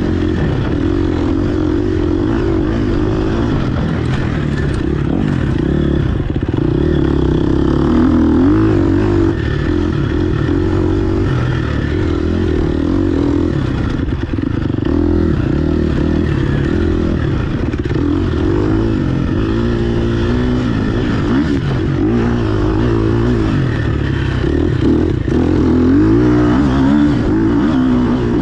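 GasGas EX 250F four-stroke single-cylinder dirt bike engine heard from on board, its pitch rising and falling over and over as the throttle is worked along a bumpy trail.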